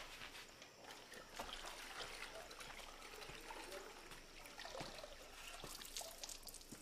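Faint trickling and splashing of water with small scattered clicks, as cloth is washed by hand to scrub out a stain.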